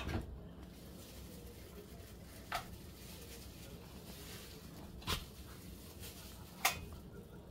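Cat eating dried anchovies from a ceramic bowl: quiet chewing with four short sharp clicks spread through, one at the start, one about two and a half seconds in, one about five seconds in and one near the end.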